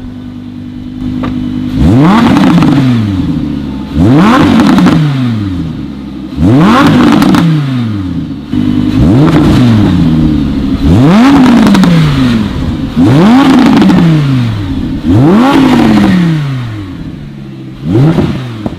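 Lamborghini engine being revved with the car in its loudest drive mode: about eight sharp throttle blips, each pitch shooting up and falling back to idle, roughly every two seconds, the last one short.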